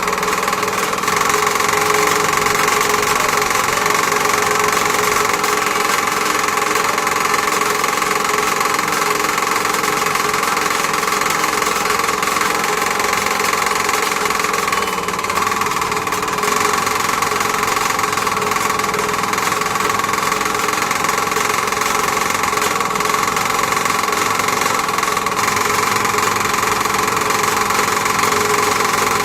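A small electric motor running steadily with a constant whine. Its level dips briefly about halfway through.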